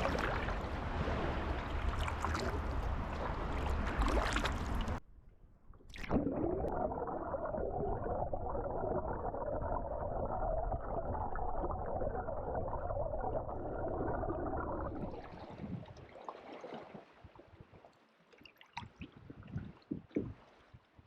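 Water sounds of a canoe being paddled: a steady wash and gurgle of water that breaks off abruptly about five seconds in and resumes, then gives way to quieter drips and small splashes from paddle strokes near the end.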